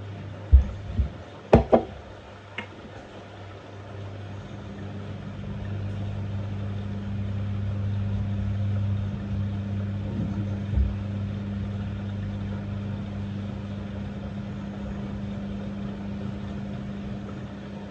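LG F1222TD washing machine running on a rinse: a steady low mechanical hum that builds over the first several seconds and then holds. A few sharp knocks near the start and one about eleven seconds in.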